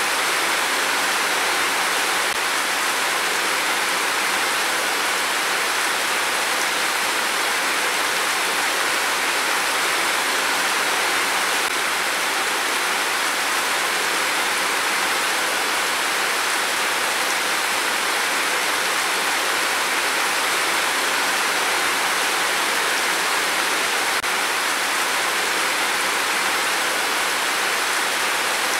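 Heavy rain pouring down in a steady, even hiss, with no thunder.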